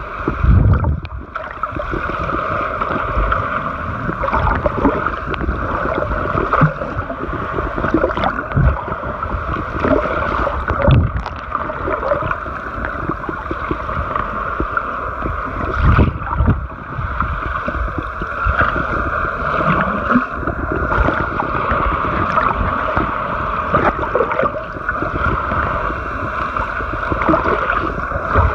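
Underwater noise picked up by a camera held just below the sea surface: a steady hum under a wash of water noise, broken every few seconds by low thumps and sloshes as the snorkeler moves through the water.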